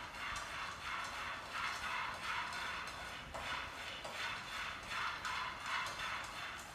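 A spatula scraping and stirring food in a pan on the stove, in a steady rhythm of about three strokes every two seconds.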